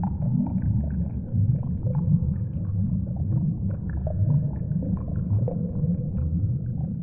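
A deep, steady rumble with faint short chirps and clicks scattered above it.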